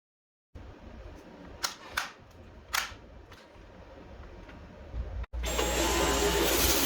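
Three sharp clicks, then about five seconds in a Dyson V11 cordless stick vacuum switches on and runs steadily at full suction.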